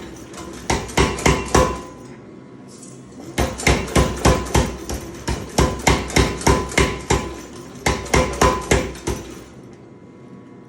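Power hammer striking a top tool on hot steel to draw out a fork stem, ringing blows about three a second. A short run, a pause of about a second and a half, then a long run that stops near the end, leaving a steady low hum.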